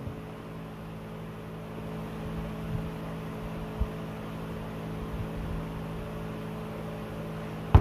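Steady low mechanical hum throughout, with a few soft swallows as a drink is sipped through a straw. A single sharp thump near the end, as the plastic cup is set down on the table.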